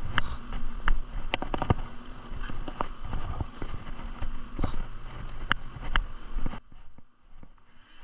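Irregular wooden knocks and clicks, with a quick cluster of taps in the second second, as pieces of wood are handled and set down on a bench. The sound cuts off abruptly near the end.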